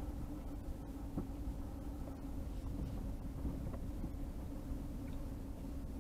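Vehicle running and driving slowly, heard from inside the cab: a steady engine hum over low road rumble, with a few faint ticks and rattles.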